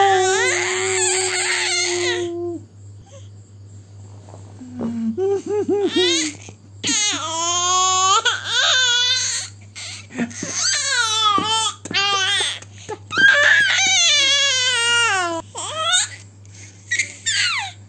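Baby squealing and shrieking happily in a series of long, high-pitched, gliding cries with some babbling between them.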